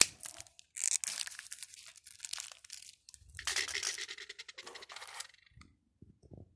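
Crinkly packaging being handled, in two long stretches of crackling rustle, with a sharp click at the start and a few soft knocks near the end.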